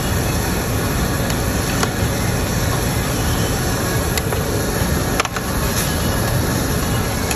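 Steady rushing noise of a tabletop yakiniku grill: thin beef and pork belly slices sizzling on the hot plate under the extractor hood's fan, with a few sharp pops.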